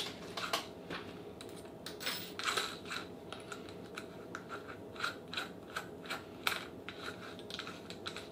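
Light, irregular clicks and taps of a cordless drill being handled while the bit is changed in its chuck.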